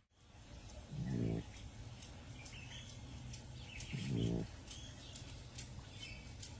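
A possum snoring inside its roof box: two short, loud snores about three seconds apart.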